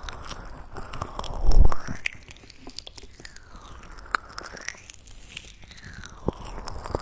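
Close-miked ASMR trigger sounds on a pair of microphones: crackly clicks and soft rubbing that sweeps up and down, with one low thump about one and a half seconds in.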